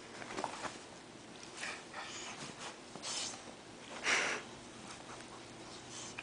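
Pit bull snuffling with its nose at a kitten: a handful of short breathy sniffs and puffs, the loudest about four seconds in.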